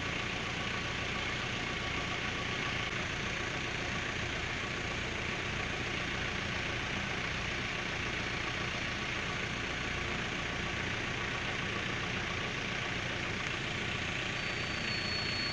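An engine running steadily at idle, with an even rumble and no change in speed. A brief high whine enters near the end.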